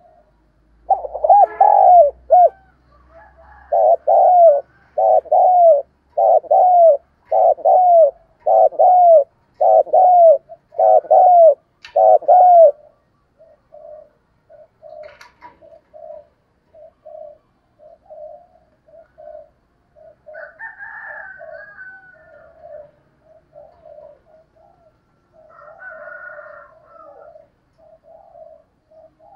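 Spotted dove cooing: about ten loud coos in a steady series, roughly one a second, each a short double-arched phrase. About halfway through these give way to much softer, shorter coos, about two a second.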